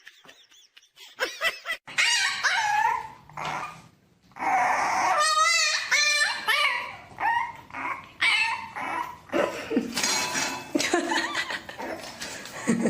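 A dog whining and yipping in a run of short pitched cries, with a fast-wavering, howl-like cry about five seconds in.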